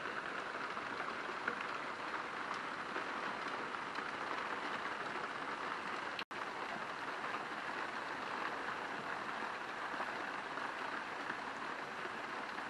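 Steady rain falling, an even hiss of drops on outdoor surfaces. The sound cuts out for a split second about six seconds in.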